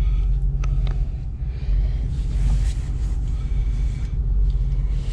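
Pickup truck engine running with a steady low rumble, heard from inside the cab, with a couple of faint clicks about half a second in.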